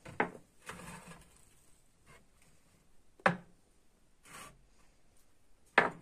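Terracotta clay pots being lifted off a metal baking tray and set down on a granite countertop: three sharp knocks, the first near the start, one a little past the middle and one near the end, with brief scraping between.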